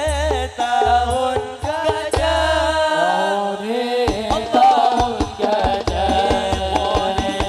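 Hadrah sholawat music: a voice singing a devotional melody with vibrato over frame-drum hand percussion and deep drum booms. The deep booms drop out for about a second around three seconds in, then return.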